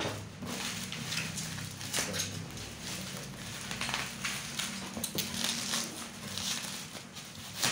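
Plastic stretch film and bubble wrap crinkling and crackling as they are pulled and peeled off a cardboard box by hand, in irregular bursts with sharp crackles, over a steady low hum.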